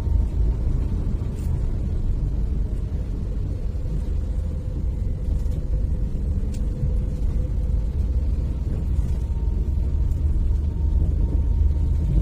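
Steady low rumble of a car driving, heard from inside the cabin: engine and tyre-on-road noise, with a faint steady hum above it.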